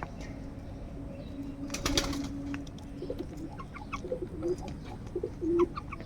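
Birds calling: a loud harsh burst about two seconds in, then a string of short, low, cooing notes.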